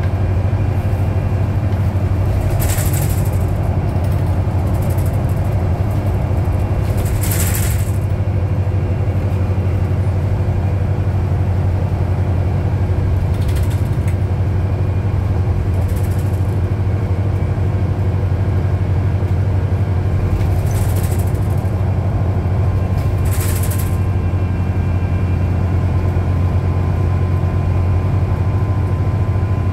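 Inside a 2010 New Flyer DE60LF articulated hybrid bus under way: a steady low drone from its Cummins ISL diesel engine and Allison hybrid drive. Several short hisses come and go over the drone.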